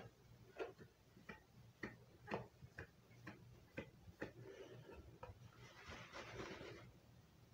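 Faint, slightly irregular ticking, about two ticks a second, over a low steady hum, with a short hiss about six seconds in.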